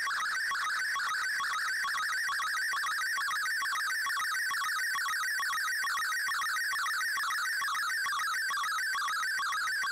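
Digital-mode picture transmission received on a shortwave radio: a warbling tone that shifts pitch rapidly in short repeating sweeps as an MFSK image is sent line by line.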